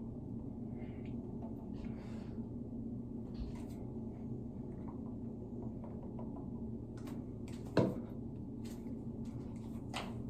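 Low steady room hum in a small room, with scattered faint clicks and knocks of things being handled, a sharper knock about eight seconds in and another near the end.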